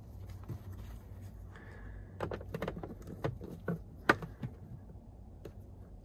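Plastic fuse box cover on the lower dash panel being fitted back into place: a run of light plastic clicks and taps, with one sharp snap about four seconds in.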